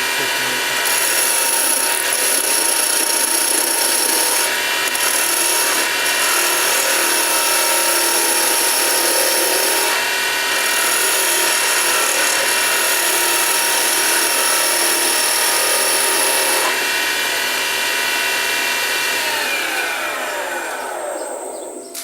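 Small wood lathe spinning at high speed on its frequency-inverter-driven 180 W motor, with a steady whine, while a chisel cuts Russian olive wood in a hissing scrape that comes and goes. The cutting stops about three-quarters of the way in; near the end the motor's whine falls in pitch and dies away as the lathe spins down.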